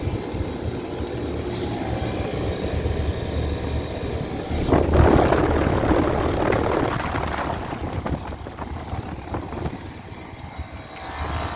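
Rheem 'Stamped Octagon' five-ton central air conditioner condenser running, a steady hum from its scroll compressor under the rush of its fan. The rush of air grows louder about five seconds in, then the sound fades over the last few seconds as the unit shuts off.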